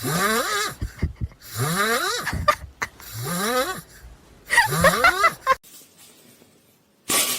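An animal crying four times, each cry a drawn-out call that slides up in pitch and back down, then a short quiet gap near the end.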